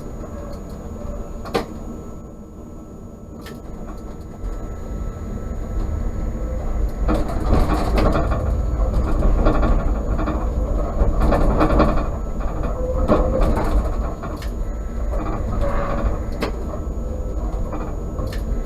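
Tram running on rails: a low rumble that grows louder after a few seconds, with occasional sharp clicks and knocks.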